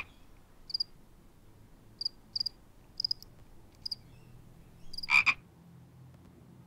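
Quiet outdoor background with scattered short, high chirps, a few each second or two, and two louder calls, one at the very start and one about five seconds in.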